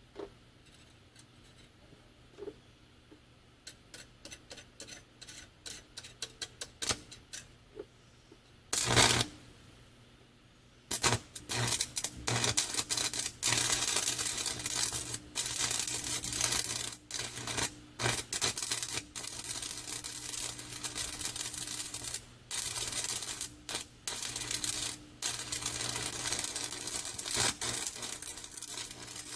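Stick (arc) welding with a 7018 electrode: a run of scratchy clicks as the arc is struck, a short burst about nine seconds in, then from about eleven seconds the steady crackling sizzle of the arc, broken by short pauses.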